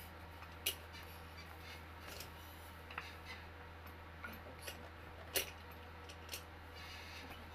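Sharp clicks and light knocks of office chair parts being handled during assembly, about four in all, the loudest about a second in and about five seconds in, over a steady low hum.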